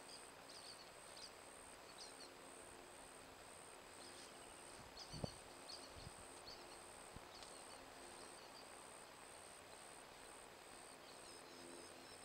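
Faint outdoor swamp ambience picked up by a trail camera's microphone: a high insect-like trill pulsing about twice a second, with scattered faint bird chirps. One soft low thump comes about five seconds in.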